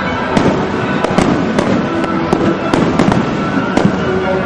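Fireworks going off in a steady string of sharp bangs, about two a second, over a continuous dense background of bursts.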